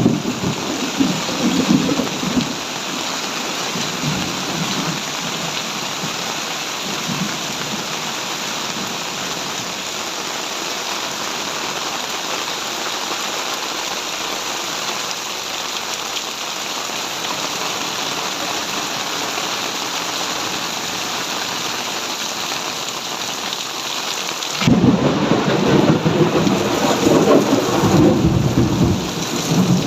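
Heavy tropical rain pouring down in a steady hiss, with low rumbling thunder at the start and again, louder, from near the end.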